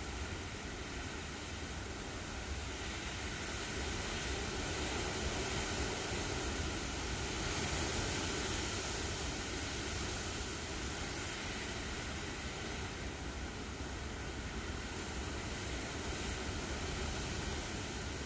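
An approaching thunderstorm heard from indoors: a steady rushing noise that swells in the middle and eases off again, with no sharp cracks of thunder.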